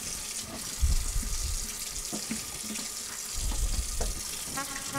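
Curry simmering in a wok: a steady bubbling hiss, with two low thumps, one about a second in and one just past three seconds.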